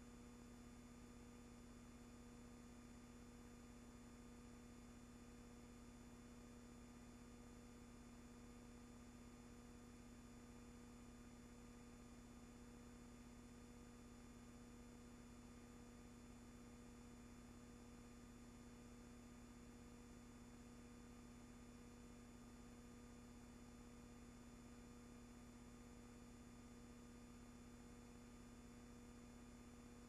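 Near silence: a faint steady hum and hiss, with no sound from the gun or the ship.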